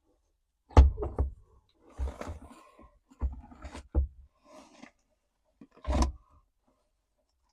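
A series of knocks and clunks with short rattling tails, about six in all, from parts and tools being handled during dashboard work.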